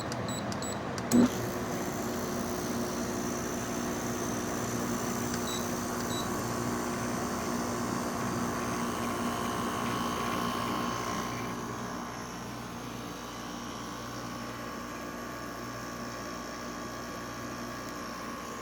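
Haier 5000 BTU window air conditioner running with fan and compressor on, a steady hum with a sharp click about a second in; it gets a little quieter about twelve seconds in. There is no squealing: its fan motor bearings have just been replaced.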